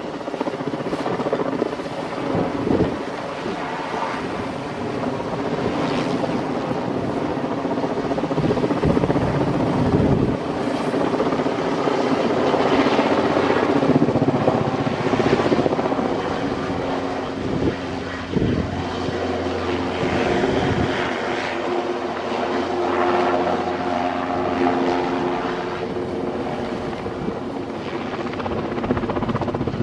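Westland Wessex helicopter in flight overhead, its main rotor beat and engine tones running steadily and swelling louder around the middle as it manoeuvres.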